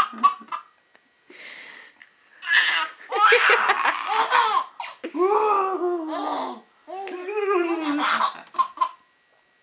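A baby laughing in several long bursts, with short breaks between them. The pitch falls through each of the later bursts.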